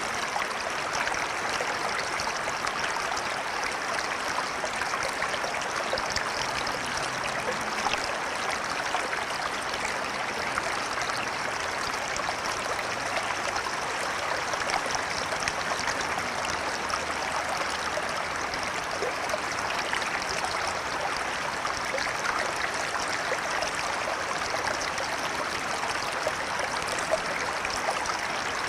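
A river flowing steadily over rocks: a constant splashing, babbling rush of water with fine trickles and gurgles.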